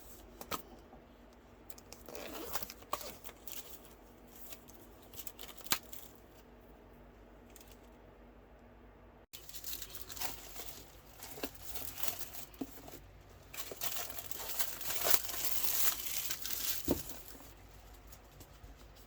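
Packaging being unwrapped by hand: paper or plastic wrapping tearing and crinkling in scattered rustles and clicks. It becomes a fuller, louder run of tearing and rustling about two-thirds of the way through.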